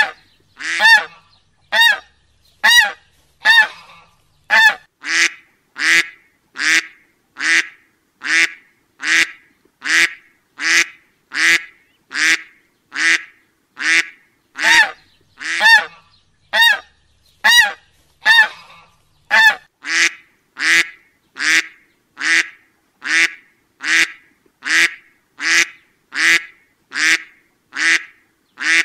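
Duck quacking: single short, nasal quacks repeated evenly about once a second.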